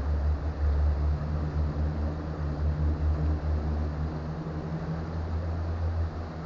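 A low, steady engine drone over the hiss of running creek water; the drone fades near the end.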